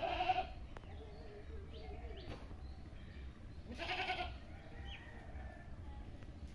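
An animal calling twice, two short calls about four seconds apart, over a steady low rumble.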